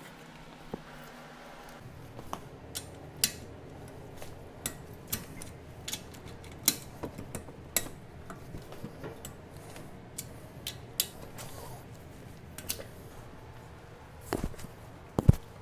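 Scattered metallic clinks and clicks of hand tools and parts being handled during brake work, over a faint steady low hum, with two heavier knocks near the end.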